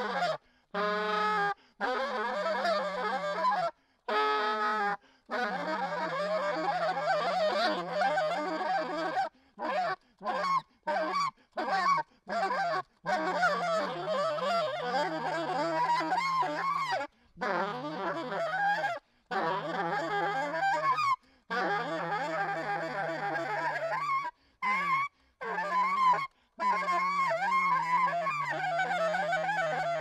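Solo alto saxophone playing free improvisation: a held low note that it keeps returning to, under dense, wavering upper tones and high squeals. The playing comes in long phrases, broken near the middle by a run of short, choppy phrases with brief silences between them.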